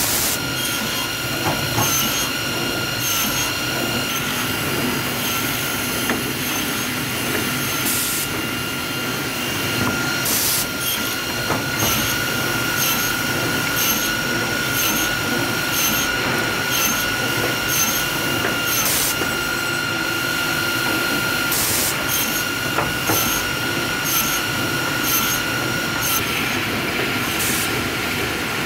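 Woodmaster WM-S260 optimizing cross-cut saw running with a steady high whine as its rubber feed rollers drive pine boards through. About six short, harsh bursts at irregular intervals are the saw cutting through the boards.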